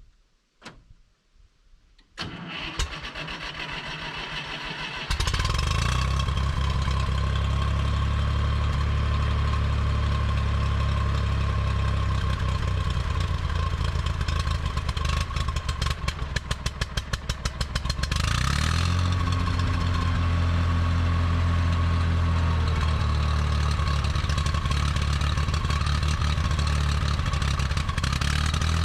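Massey Ferguson 135's Perkins AG3.152 gas engine cranked by the starter for about three seconds, then catching and running. The run is uneven for a few seconds about two-thirds of the way through, then settles to a steady note.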